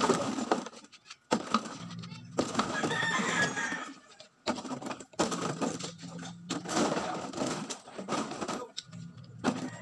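Empty plastic drink bottles crinkling and clattering as they are handled and sorted by hand, in irregular spells with short pauses.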